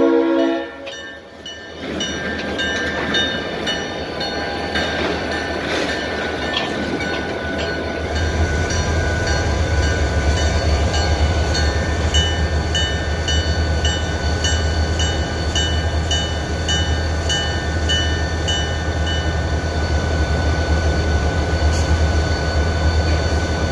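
Diesel locomotives of a Florida East Coast Railway train rolling slowly past, after a horn blast cuts off at the very start. About eight seconds in, the low drone of the engines strengthens and a grade-crossing bell dings at a steady beat.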